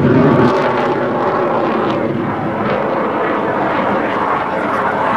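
Jet noise from a US Navy F/A-18 Hornet's twin turbofan engines as it flies a display manoeuvre overhead: a loud, steady rumble that drops slightly about half a second in and then holds level.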